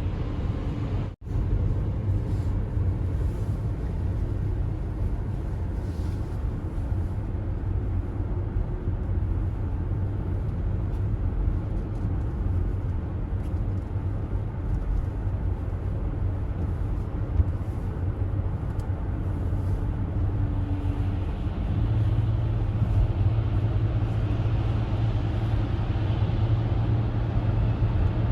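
Car driving at highway speed: a steady low rumble of engine and tyre noise. The sound cuts out briefly about a second in, and a deeper low hum comes in after about twenty seconds.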